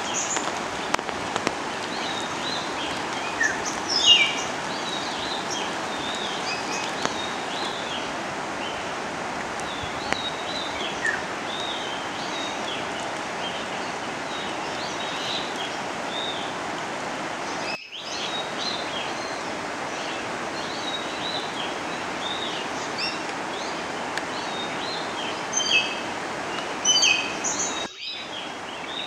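Many small birds chirping and calling in short, scattered notes over a steady rushing noise of water. The sound breaks off for an instant twice.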